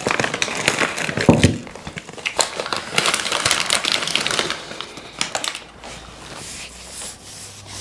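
Crinkling and crackling of a food wrapper being handled around a sausage pie, a dense run of sharp crackles that thins out and quietens over the last couple of seconds.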